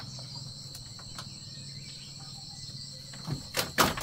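Steady high-pitched insect chorus with a low hum beneath it, and a few sharp knocks in the last second.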